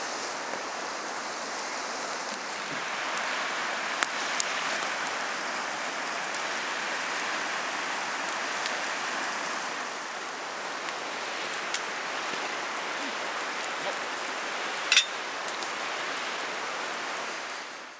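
Steady rain, an even hiss with scattered sharper drop hits and one louder tick about fifteen seconds in.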